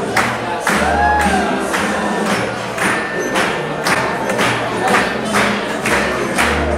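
Music with a steady beat, about two beats a second, over a bass line.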